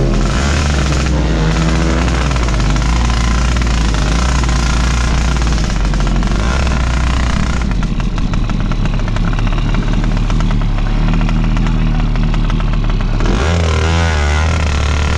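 A drag-tuned 116cc underbone motorcycle engine running at low revs, loud and steady. Its pitch shifts a few times, and it wavers up and down near the end.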